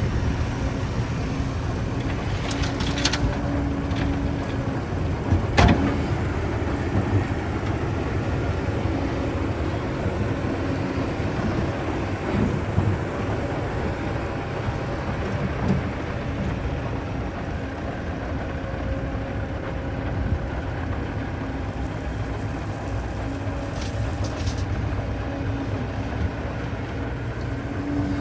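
Heavy construction machine's diesel engine running steadily with a low rumble, and a few knocks, the loudest one about five and a half seconds in.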